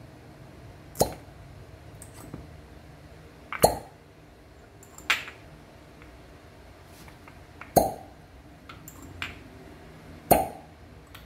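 Heated glass suction cups being set one after another onto bare skin in traditional fire cupping. Each lands with a sharp pop as it seals, five times about two and a half seconds apart, with fainter glass clinks between.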